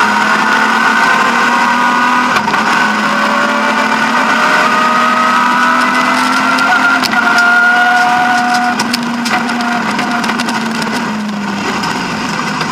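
BMW E36 M3 rally car's straight-six engine heard from inside the cabin, pulling under load with its pitch slowly climbing, then backing off about nine seconds in and easing further near the end. Sharp clicks and knocks come through from about seven seconds in.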